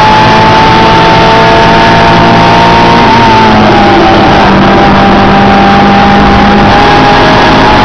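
Honda Integra Type-R's four-cylinder engine, heard from inside the cabin, held at high revs through a corner. The pitch dips briefly about three seconds in, then climbs slowly. The recording is overloaded and distorted.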